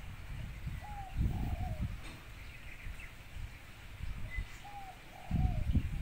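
Spotted dove (tekukur) cooing: two call phrases about four seconds apart, each a short note followed by a two-part falling coo. A low rumble runs underneath and is loudest near the end.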